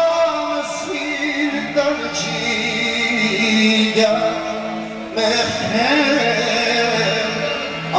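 Live Armenian song: a man singing into a microphone with accordion and band accompaniment, with held notes and gliding vocal lines.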